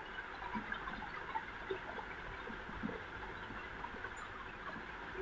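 Faint handling noise as a plastic glue bottle is squeezed to trace a line of white glue on paper: small scattered ticks and rustles over a steady hiss.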